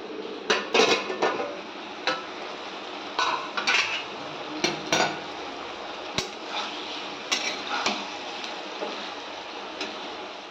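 A steel spatula scrapes and clinks against a kadhai, stirring potato and drumstick pieces frying in oil, over a steady frying hiss. It fades out near the end.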